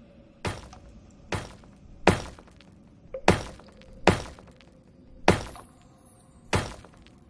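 A series of seven sharp thuds, unevenly spaced about a second apart, over a faint steady hum.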